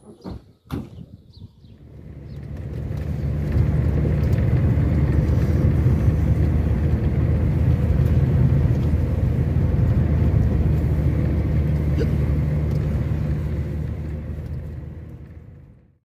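Two sharp thumps, then an old car's engine and road noise heard from inside the cabin as it drives, a steady low rumble that builds over the first few seconds and fades near the end.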